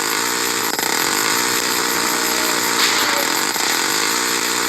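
Small propeller plane's engine running steadily with a loud, even buzz.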